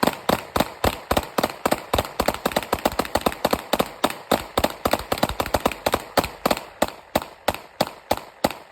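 Rapid gunfire: a long, even string of shots at about five a second, fired without a break.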